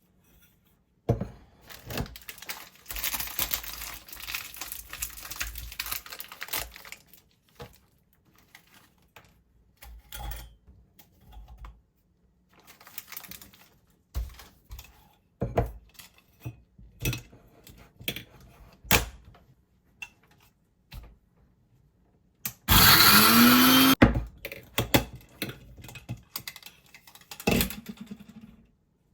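Kitchen preparation sounds: scattered clicks and knocks of utensils and containers, and a few seconds of noise early on. About 23 seconds in comes one short, loud run of a small electric blender or food processor, its motor pitch rising as it spins up. This is typical of crushing digestive biscuits for a cheesecake base.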